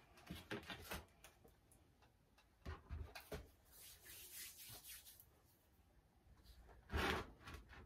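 Faint rubbing and light knocks of plastic seedling trays and pots being handled on a wooden bench, with a short, louder scrape about seven seconds in.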